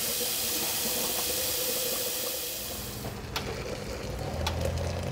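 Kitchen tap running into a stainless steel kettle, a steady rushing hiss. About three seconds in it gives way to quieter sounds with two sharp clicks, and then water pouring from the kettle into a glass French press.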